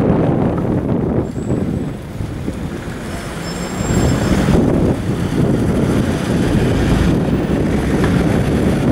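Road traffic rumbling at a junction as an emergency ambulance drives past, with wind buffeting the microphone. It gets louder about four seconds in.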